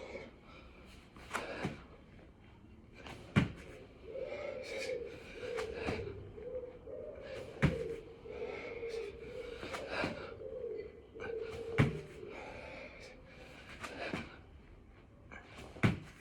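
A person doing six-count burpees on a hard floor: a sharp thud about every four seconds, with softer thumps and heavy breaths between them.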